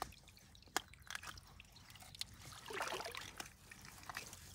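Faint water dripping and sloshing around hands working a fish out of a net into a plastic bag in shallow lake water. Scattered small clicks, and a brief louder noisy stretch about three seconds in.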